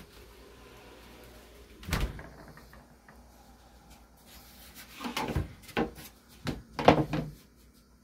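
Knocks and thumps of a wooden latch bar, a plywood board with a wood block, being handled against the top edge of a refrigerator door. One sharp knock comes about two seconds in, then a run of knocks and rubbing near the end, the loudest of them all.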